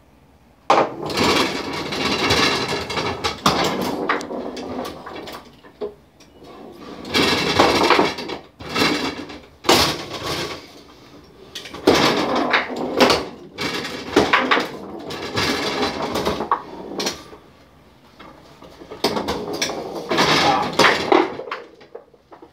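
Foosball being played on a wooden table: the ball and plastic players clacking, with rods knocking and sliding, in several busy bursts separated by short lulls.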